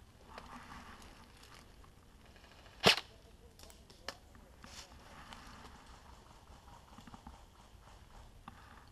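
G&G M4 airsoft electric rifle firing one sharp shot about three seconds in, followed by a fainter click about a second later. Faint rustling of dry leaves as the player shifts position.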